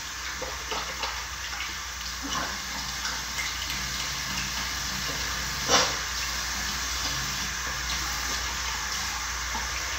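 Bathroom sink tap running steadily while water is splashed onto the face to rinse off facial cleanser, with small splashes throughout and one louder splash about six seconds in.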